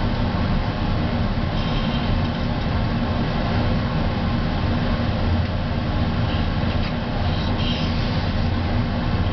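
Laboratory fume hood exhaust fan running: a steady, unbroken rumbling whoosh.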